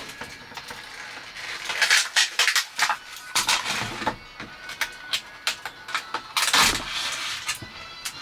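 Irregular rustling and sharp clicks from objects being handled, with louder rustling bursts about two, three and a half, and six and a half seconds in.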